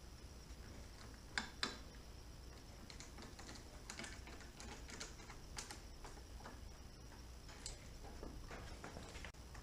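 Faint, scattered clicks and taps of hand work on a motorcycle handlebar while a new hand grip is fitted, with two sharper clicks about a second and a half in.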